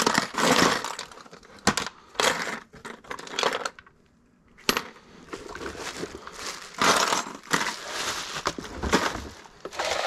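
Metal jewelry (bracelets, rings, earrings) clinking and rattling in a plastic tackle box tray as it is sorted by hand, with clatters of the plastic box and crinkling of bubble wrap being handled in the second half.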